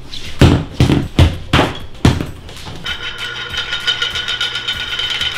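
Five heavy thumps in quick succession, then a steady high buzzing hum with a fast rattle that starts about three seconds in.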